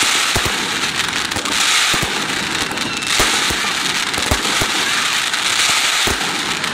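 Aerial fireworks display: several deep booms of shells bursting, a second or so apart, over a continuous crackling hiss.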